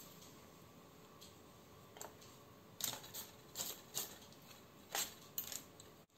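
Light clicks and taps of a metal fork and server against an aluminium-foil parcel on a baking tray as cooked salmon is lifted out. Quiet at first, then about eight scattered taps from about two seconds in.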